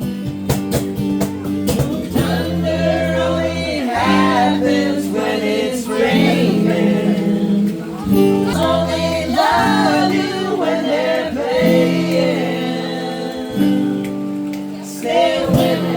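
Music: a voice singing a melody over guitar, with held low chords that change every couple of seconds.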